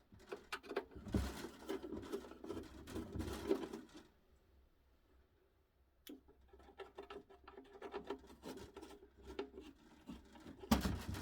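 Small clicks, taps and scraping from a clock being handled and taken apart by hand, with a pause of about two seconds in the middle and a louder knock near the end.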